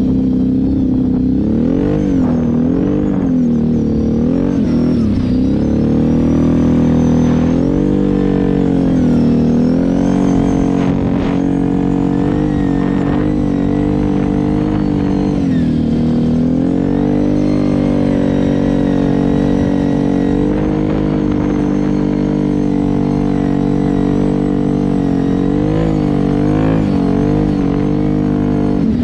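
Kawasaki KFX 700 ATV's V-twin engine running under throttle while riding. Its pitch dips and climbs back several times as the throttle is eased off and reopened, and otherwise holds steady.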